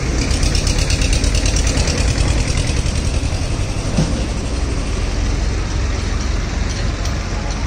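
A motor vehicle's engine idling close by: a steady low rumble with a fast, even pulse. A short knock sounds about four seconds in.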